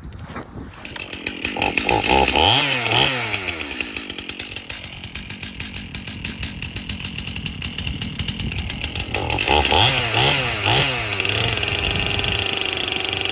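Stihl MS 271 Farm Boss two-stroke chainsaw with a 20-inch bar running. It revs up and drops back about two seconds in and again near ten seconds, with a lower stretch between, then holds a steady high speed near the end.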